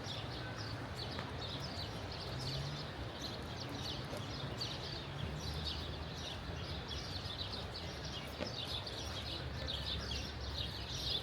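Small birds chirping continuously, many quick chirps overlapping, over a steady low rumble.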